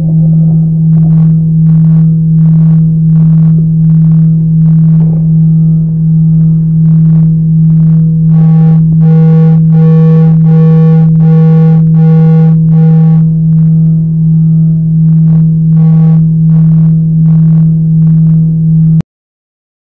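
Electronic drone from the E-Horn of a bronze horn-shaped interactive sound sculpture: a loud, steady low hum with higher overtones pulsing about twice a second. The overtones grow brighter in the middle, and the whole sound cuts off suddenly near the end.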